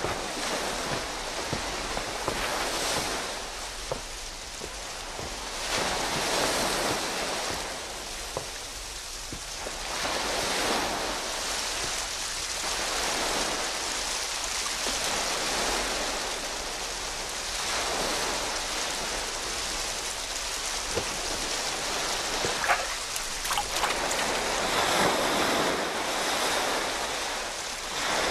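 Sea surf breaking and washing up a beach, swelling and falling every few seconds, with wind. A few short clicks sound near the end.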